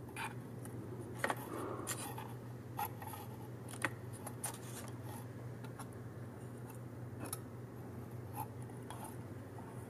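Stiff paper cutout doll figures being handled on a folded-paper toy bathtub: scattered light clicks and scrapes of card against card at irregular times, over a steady low hum.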